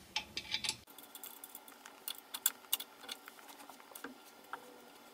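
Open-end wrench clicking against a bolt on the elliptical's steel frame: a scatter of light metal clicks as the wrench is fitted and worked to tighten the bolt.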